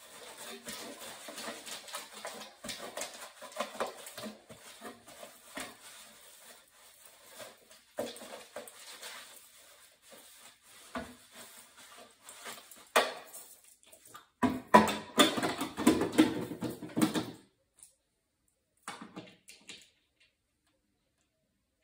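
Cloth rag rubbing and wiping over the metal inside an oil boiler's casing: irregular scuffing and rustling with a few sharp knocks, and a louder stretch of scraping and handling a little past the middle, then it stops.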